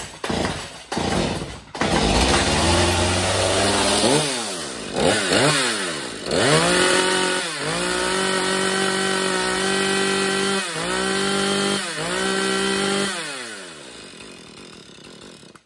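Husqvarna 340 two-stroke chainsaw starting up, then revved up and down several times and held at high revs with brief dips, spinning the chain to test whether the newly replaced oiler throws bar oil. Near the end it drops back to a lower, quieter running speed.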